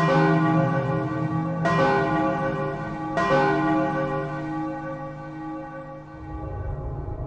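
A bell tolling, struck three times about a second and a half apart, the last strike left ringing out slowly for about four seconds before another strike at the very end.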